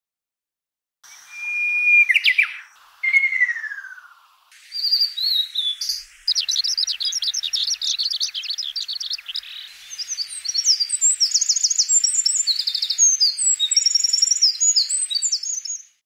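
Songs of several different songbirds played one after another, each clip cut sharply into the next. First come clear whistled notes with a long held note and falling glides, then a fast run of high twittering notes, then varied high, quick phrases.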